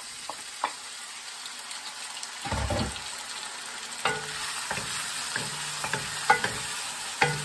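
Oil sizzling in a wok as diced tomato goes in on top of frying garlic, onion, ginger and lemongrass, with a dull thump about two and a half seconds in. From about four seconds in, wooden spoons stir and scrape the mixture with light clicks against the pan.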